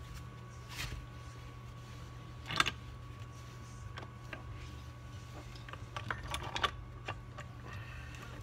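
Norton Commando gearbox casing and small metal parts being handled on a cardboard-covered bench: scattered light clicks and knocks, the sharpest about two and a half seconds in and a quick cluster around six seconds. A steady low hum runs underneath.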